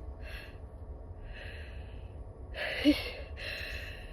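A woman's uneven, breathy in-breaths as a sneeze builds, four of them, with a short voiced catch in the throat about three seconds in. A steady low rumble runs underneath.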